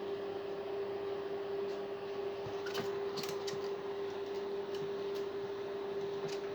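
A steady electrical-sounding hum at one pitch over light room noise, with a few faint short clicks and taps about three seconds in and again near the end.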